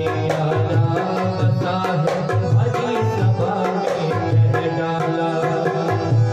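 Instrumental passage of a bhajan: a dholak barrel drum played in a quick, steady rhythm under held melody notes on an electronic keyboard.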